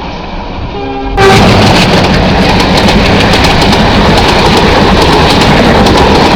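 A train running at speed close by: a loud, steady rush of wheel and rail noise with rapid clattering, which starts abruptly about a second in after a brief steady tone.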